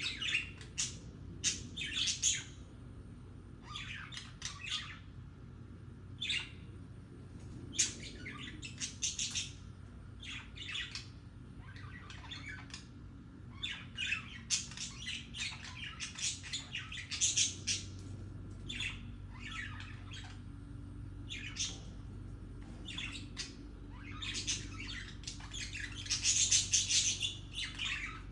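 Budgerigars chattering: short, irregular runs of high chirps, warbles and squawks, with a louder, busier run of chatter near the end. It is the chirpy chatter of contented budgies that the uploader calls happy, mating sounds.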